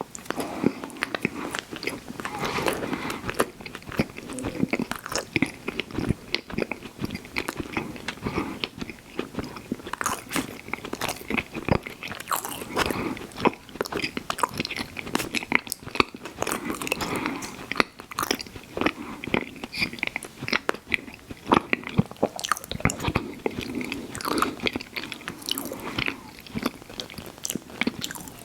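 Close-miked eating of ice cream sandwiches: repeated bites and chewing with many small, irregular crunches.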